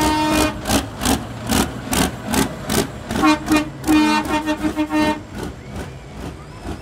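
Truck air horns honking in a held blast at the start and again from about three to five seconds in, over a fast, regular run of sharp cracks about two to three a second. Both fade after about five seconds.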